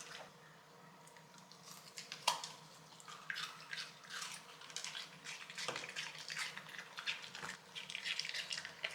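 Shiba Inu chewing and licking frozen cucumber: irregular wet clicks and crunches, one sharper crack about two seconds in.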